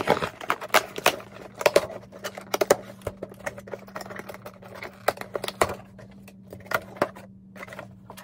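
A long, thin cardboard shipping box being opened by hand: irregular scraping, rustling and clicking of cardboard and packing, busiest in the first few seconds and sparser toward the end.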